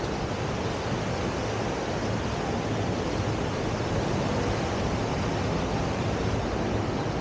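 Steady rushing noise of ocean surf, even and unbroken, with no distinct events.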